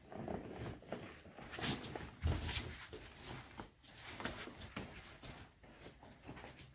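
A heavy woven sack of maize flour being lifted and carried indoors: irregular rustling, scuffs and footsteps, with a heavier thump about two seconds in.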